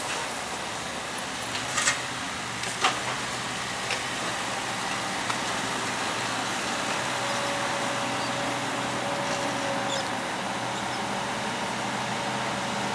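Skid steer engine running steadily, with three sharp knocks in the first few seconds and a faint steady whine for a few seconds past the middle.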